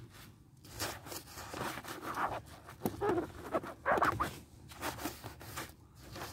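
A wet sponge scrubbing over the foam-covered plastic of a scooter, a run of uneven rubbing strokes.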